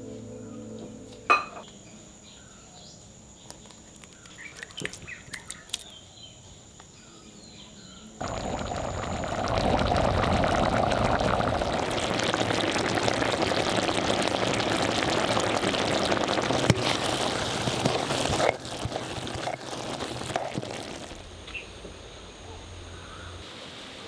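Liquid pouring steadily for about ten seconds, starting suddenly about eight seconds in and cutting off near the end. Before it there is a sharp knock about a second in and a few light clicks.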